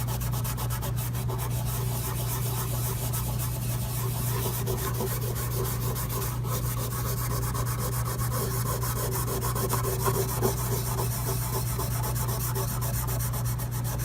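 A Scotch-Brite abrasive pad scrubbed steadily back and forth on a flat metal plate, scouring off old silicone residue, with a steady low hum underneath.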